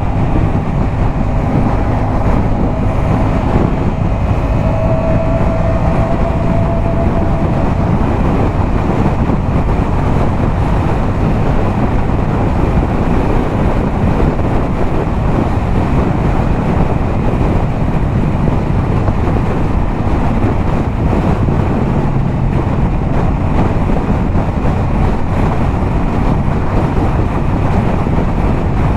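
Yamaha MT-07's 689 cc parallel-twin engine, fitted with a LeoVince aftermarket exhaust, running steadily at highway cruising speed, with heavy wind rushing over the microphone.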